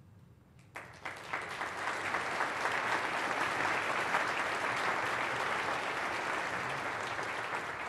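Audience applauding. It starts about a second in after a brief quiet and eases off slightly near the end.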